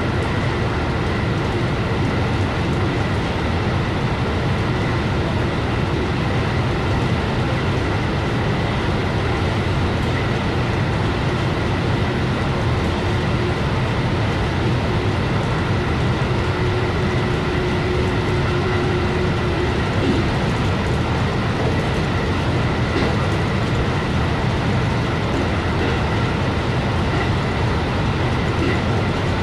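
JR West 223 series electric train running at about 120–127 km/h, heard from its driver's cab: a steady rumble of wheels on rail with a faint, steady high whine.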